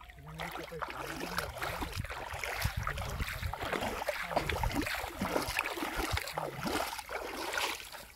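Shallow pond water sloshing and splashing continuously as a man wades and drags a cone-shaped hand fishing net through it, with many small irregular splashes.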